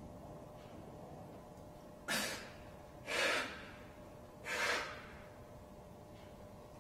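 A man's three sharp, forceful breaths of exertion, a little over a second apart, as he does hanging leg raises from a pull-up bar.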